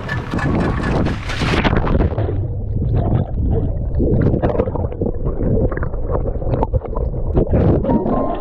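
Seawater splashing over the camera, which goes under the surface about a second and a half in; the sound then turns to a muffled underwater rumble with bubbling and knocks.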